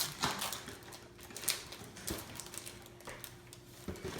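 Pokémon card booster pack's wrapper being torn open and handled: a string of short, sharp crinkles and clicks.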